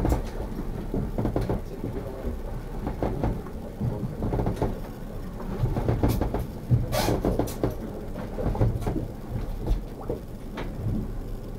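A boat at sea: a steady low rumble with irregular knocks and rattles, and a brief louder hiss about seven seconds in.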